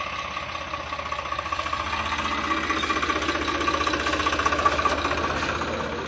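John Deere 5310 and Swaraj 855 tractors' three-cylinder diesel engines running hard under load as they pull against each other on a chain, with a steady, fast diesel knock that grows a little louder in the middle.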